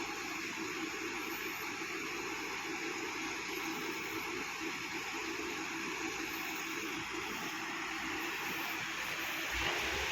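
Steady engine noise and hiss of heavy machinery at work, with a deeper engine note coming in near the end.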